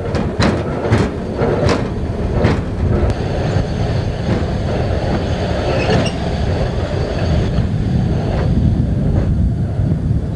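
Hi-rail truck running on railway track, heard from inside the cab: a steady low rumble, with several sharp clicks in the first few seconds as the wheels pass rail joints, and a faint high-pitched squeal in the middle.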